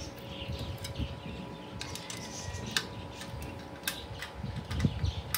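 Scattered light clicks, ticks and soft knocks of a manual meat slicer's metal frame and plastic parts being handled and fitted together, with a few sharper clicks in the second half.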